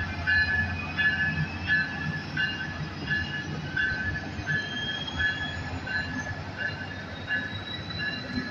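Amtrak passenger train's cars rolling past, a low rumble with faint wheel squeal that rises slowly in pitch. Over it, a ringing tone repeats about twice a second.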